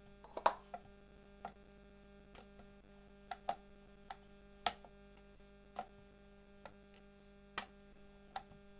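Wooden rolling pin knocking and rolling on a wooden rolling board as a sheet of dough is rolled out: short, sharp, irregular knocks about once a second, over a low steady electrical hum.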